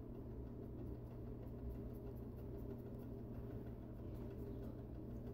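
Quiet room tone with a steady low hum; no distinct sound stands out.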